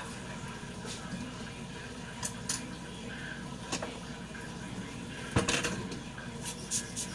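Scattered light metallic clicks and clinks from small metal parts and tools being handled on a work surface, over a steady background hum. The loudest clinks come about five and a half seconds in, with several more near the end.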